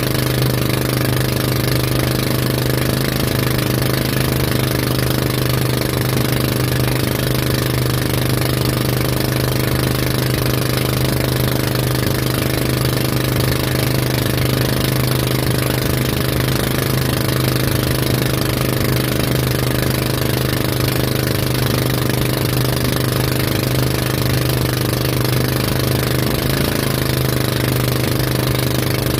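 Motorboat engine running steadily at a constant speed while towing a banana boat, its pitch and level unchanging.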